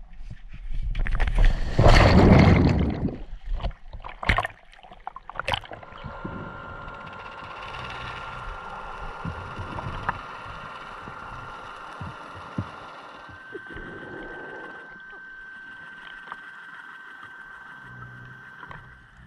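A diver's entry splash into the sea, a loud rush of water about a second in, followed by a few knocks; then the steady whine of an underwater scooter's electric motor during the descent, its pitch stepping up a little about halfway through.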